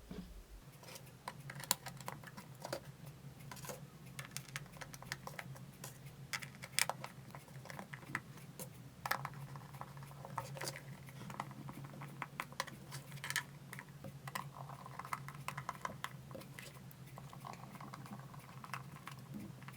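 Irregular light clicks and taps of an electric kettle's plastic parts being handled and fitted back together, over a faint steady low hum.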